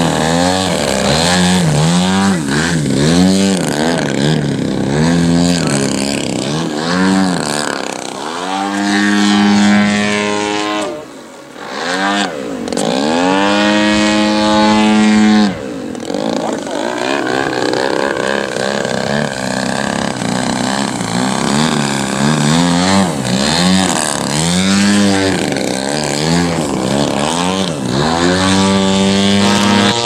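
A large radio-controlled aerobatic plane's engine and propeller revving up and down over and over as the throttle is pumped in a hover, at about one surge a second. Near the middle the throttle is held high twice, with a brief chop in between.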